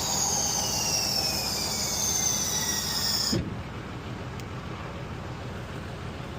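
Concrete mixer truck running at the pour, with a loud high hissing whine that slowly falls in pitch and cuts off abruptly about three and a half seconds in, leaving a steady low engine rumble.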